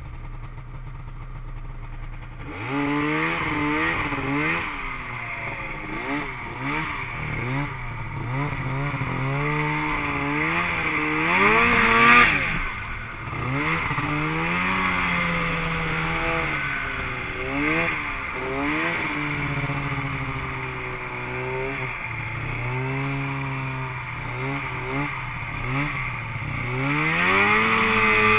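2006 Arctic Cat Crossfire 700 snowmobile's two-stroke twin engine, running low and steady for the first two seconds or so, then revving up and down again and again as the throttle is worked over small snow drifts, with its loudest rev about twelve seconds in.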